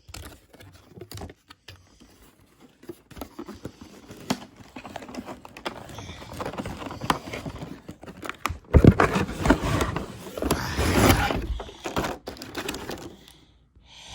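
Cardboard and plastic toy packaging rustling, crinkling and scraping as it is handled and pried open by hand, growing louder for a couple of seconds around the middle to later part.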